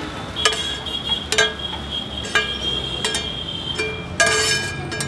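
Metal spatula knocking and scraping against a blackened wok while scrambled egg is emptied out of it: a string of sharp metallic clinks, about six or seven, each ringing on briefly, with one high ring that lingers through most of the stretch.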